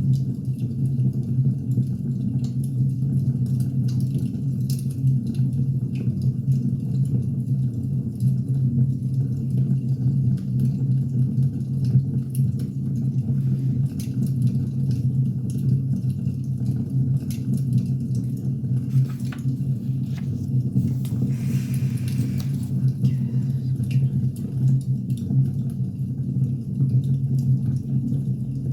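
Wood fire burning: a steady low rumble of flames with scattered small crackles and pops from the logs.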